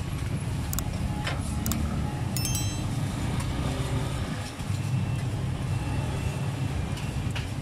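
Steady low rumble of street traffic, with a few light clicks in the first couple of seconds and a brief high ringing clink about two and a half seconds in.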